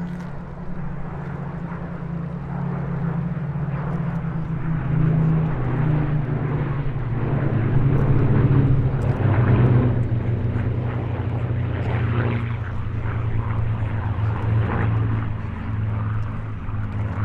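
Rolls-Royce Merlin V12 piston engines of two Supermarine Spitfire Mk.Ia and a Hawker Hurricane Mk.I running as the three fighters fly past together. The engine note grows louder to a peak about halfway through, then eases, its pitch falling slightly as they go by.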